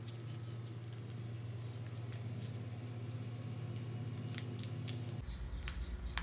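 Faint scattered light clicks and taps of kitchen handling over a steady low hum; the hum drops lower about five seconds in.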